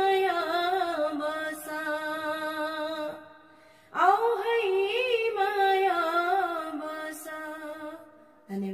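A woman singing a Nepali folk song unaccompanied: two long drawn-out phrases with wavering, ornamented held notes, and a short breath pause between them about three seconds in.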